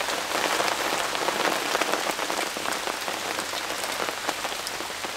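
Steady rain falling, a dense patter of many drops.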